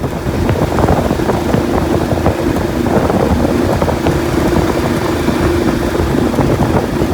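A 37 hp Vanguard-powered surface-drive mud motor runs steadily with the boat under way. Strong wind buffets the microphone.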